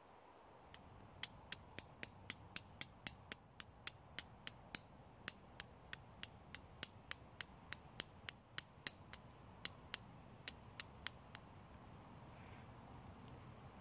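A long series of sharp, evenly spaced clicks, about three a second, from a small device worked by hand; they stop a couple of seconds before the end.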